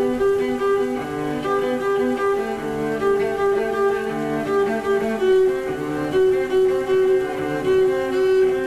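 Classical string music: a cello and other bowed strings playing a slow melody of held notes over a sustained accompaniment.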